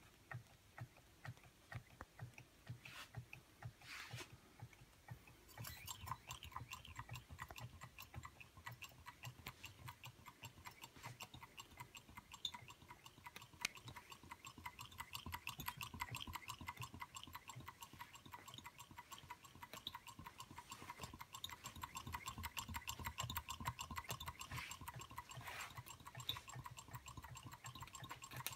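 Two small beam-type Stirling hot-air engines running together: a fast, faint clatter of ticks from their moving parts, growing denser about six seconds in, with a faint high steady tone under it.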